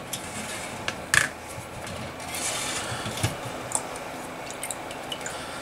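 Liquid solvent sloshing and dripping as an engine piston is fished out of a metal soaking can, with a few light clicks of metal against the can, the sharpest about a second in.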